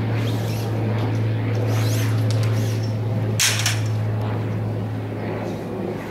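A steady low drone, with a short rustle of fabric a little past halfway as flag prints are pushed into a carry bag.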